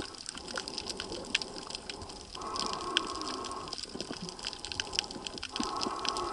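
Underwater sound picked up by a submerged camera while snorkelling: water rushing and bubbling around the microphone, with many sharp clicks. A steady hum cuts in and out a few times.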